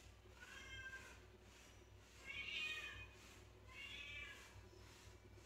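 Domestic cat meowing faintly three times, short calls that rise and fall in pitch, the middle one the loudest.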